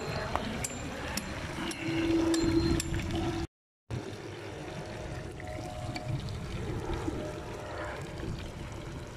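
Freshwater bream frying in plenty of hot oil in a pan over a wood fire: a steady sizzle with scattered crackles and spits. The sound drops out completely for a moment about three and a half seconds in.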